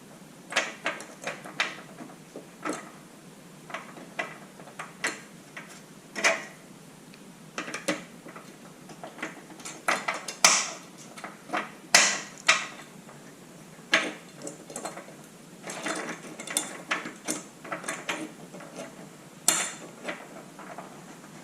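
Irregular metallic clicks, clinks and knocks of a Rhino Rack Pioneer LED light bar bracket and its bolts being positioned and tightened by hand, with a few louder knocks in the middle and near the end.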